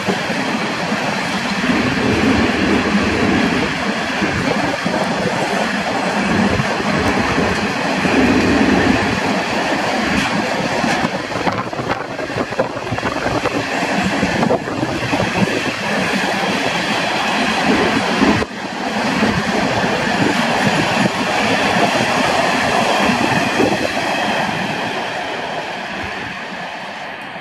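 Long freight train of open gondola wagons rolling past at speed, steel wheels running over the rails in a continuous rumble and clatter. The sound fades near the end as the last wagons move away.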